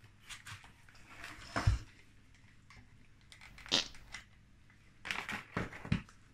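Handling sounds on a plywood workbench: a few knocks and clatters as a hot glue gun is picked up, used around the base and set down, the loudest thump about a second and a half in and a cluster of knocks near the end.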